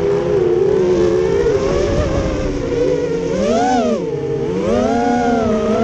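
QAV210 racing quadcopter's brushless motors and propellers whining on a 4S battery, heard through the onboard GoPro Session, the pitch swinging up and down with the throttle: a sharp rise and fall about three and a half seconds in, then another climb near the end.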